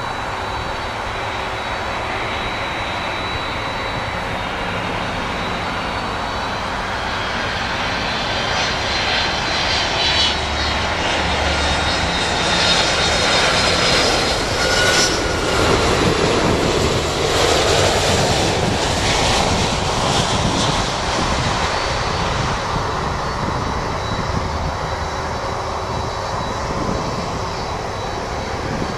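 Boeing 767-300F freighter's twin jet engines at approach power, growing louder with a high whine as it passes close about halfway through, then fading as it heads down to the runway.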